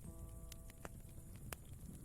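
Campfire crackling: a few sharp, separate pops over a low steady rumble of the fire. A soft piano chord is struck at the start and held under it.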